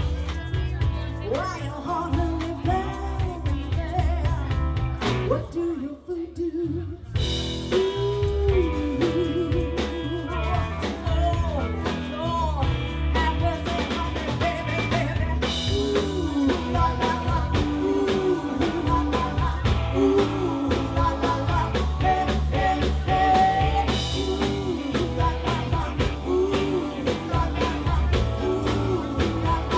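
Live rhythm and blues band playing, with a woman singing the lead over electric guitar, bass, drum kit and saxophone. About six seconds in the band briefly drops out, then comes back in.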